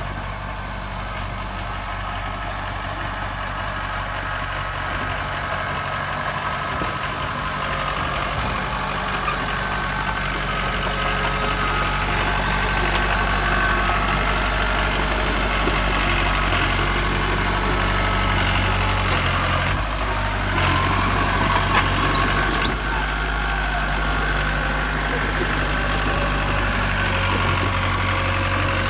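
Diesel engine of earthmoving machinery running steadily, growing gradually louder, with a higher whine on top. A few sharp knocks come about twenty-one to twenty-three seconds in.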